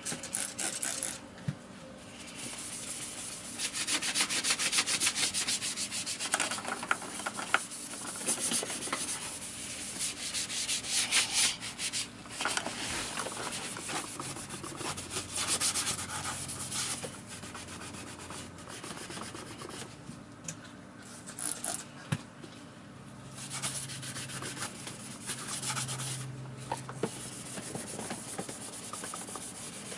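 Hand scrubbing of a vacuum cleaner's parts during cleaning: bursts of quick back-and-forth rubbing strokes with short pauses between them.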